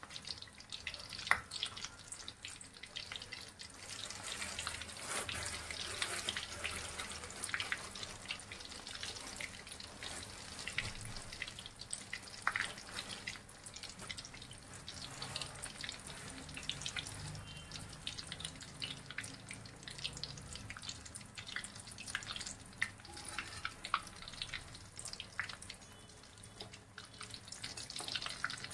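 Bread rolls deep-frying in hot oil, a steady sizzle with many irregular small crackles and pops.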